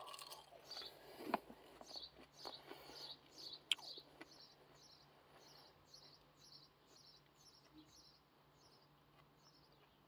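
Faint bird chirping, short high falling chirps repeated about twice a second. Over the first few seconds there is quiet chewing of chips with small clicks.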